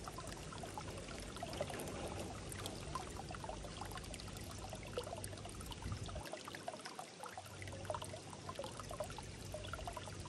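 A small stream trickling and babbling steadily.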